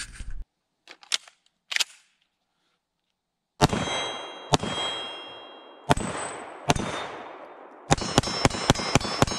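Canik SFx Rival 9mm pistol firing: four spaced shots, then a quick string of about six, each hit followed by the ringing of a steel target plate. A few light clicks come before the first shot.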